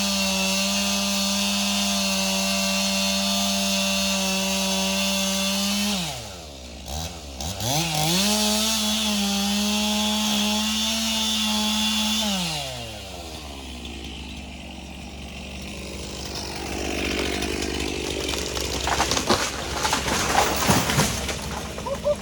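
Stihl MS362 two-stroke chainsaw running at full throttle in a cut. About six seconds in it drops toward idle, then revs back up and cuts again, and about thirteen seconds in the engine note falls away. After that comes a quieter, lower noise with several sharp knocks near the end.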